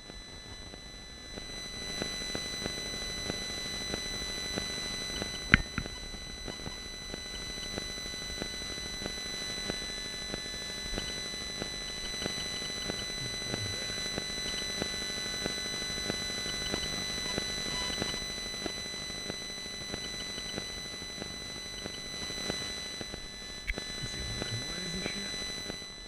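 Radio-frequency interference from a T-Mobile cell antenna picked up by the camera's audio: a steady electronic buzz with high whining tones and fast pulsing. It sets in about two seconds in and fades near the end, with one sharp click about five and a half seconds in.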